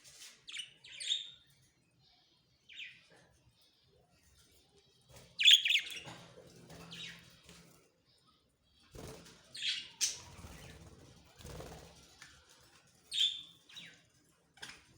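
Budgerigars chirping in short, scattered calls, some of them loud, with a stretch of wing flapping or rustling in the middle.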